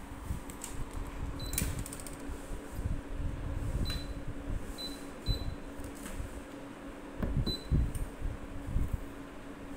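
Inalsa Aero Smart N Steam air fryer oven running in rotisserie mode: a steady fan and motor hum as the spit turns, with a few sharp clicks.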